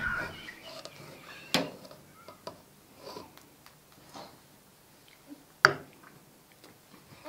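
Metal skimmer stirring cooked rice in an aluminium pot, with two sharp clinks of the spoon against the pot, about a second and a half and five and a half seconds in; the second is louder.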